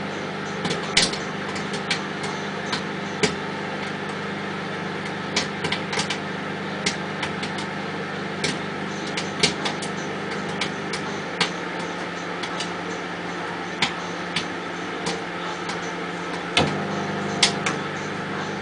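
Popcorn kernels popping in a ceramic bowl under plastic wrap inside a running microwave oven: scattered, irregular sharp pops over the oven's steady hum. The hum shifts about two-thirds of the way in, with a louder knock shortly after.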